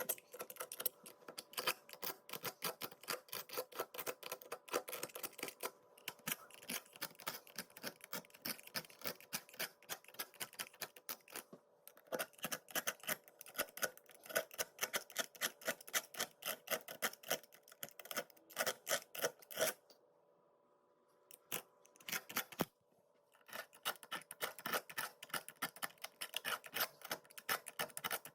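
Rapid, repeated scraping strokes of a hand tool working kitchen-counter tile grout, several strokes a second, with short pauses and a longer break about two-thirds of the way through.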